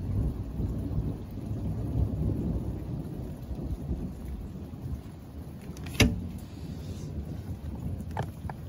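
Thunder rumbling: it starts suddenly and rolls on, fading near the end. A sharp click sounds about six seconds in.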